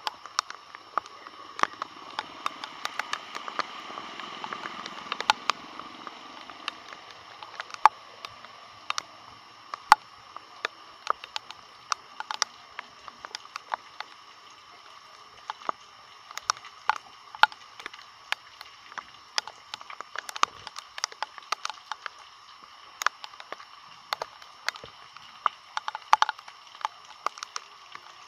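Water sloshing as someone wades through floodwater, swelling for a few seconds near the start, with irregular sharp taps of raindrops striking close to the microphone.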